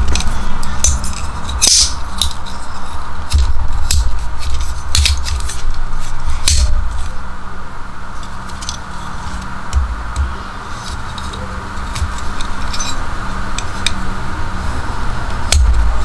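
Background music, with scattered sharp metallic clicks and snaps from a Nextool multitool as its pliers handles and blade are folded and unfolded by hand.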